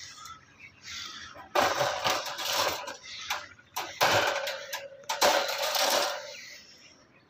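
Metal wire dog crate rattling and clanking as it is opened and handled, with three louder bursts of jangling about a second and a half, four and five seconds in.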